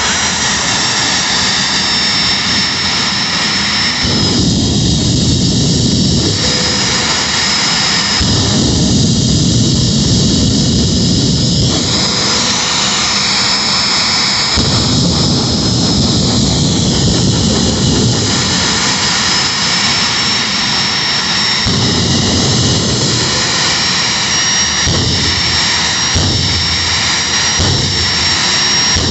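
Jet engine of a jet-powered drag car running in place, a steady high whine over a loud roar. The low rumble swells in surges every few seconds.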